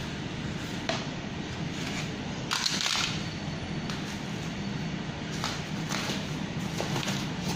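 Cardboard and plastic packing wrap being cut with a box cutter and torn off a bicycle rim: short ripping and rustling bursts, the loudest about two and a half to three seconds in, over a steady low hum.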